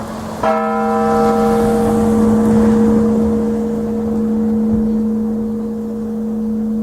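A large church bell struck once about half a second in, over the hum still ringing from an earlier stroke. The bright upper tones die away within a couple of seconds while the deep hum rings on, slowly fading.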